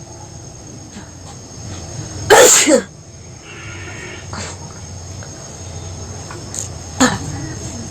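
A person sneezes loudly once about two and a half seconds in, a sneeze brought on by poking the nose with a stick. A shorter, sharper burst of breath follows near the end.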